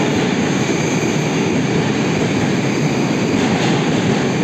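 Moscow Metro 81-760 Oka train pulling out of the station: a loud, steady running noise of its wheels on the rails and its traction drive as the cars pass and move off.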